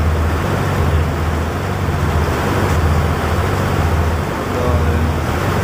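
A fishing boat's engine running steadily: a low, even hum under a wash of noise.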